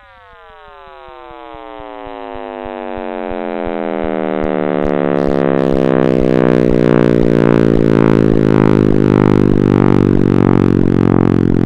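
Electronic sound effect: a buzzy tone with many overtones glides steadily downward in pitch and swells in loudness over the first few seconds, then settles into a low drone that throbs about twice a second.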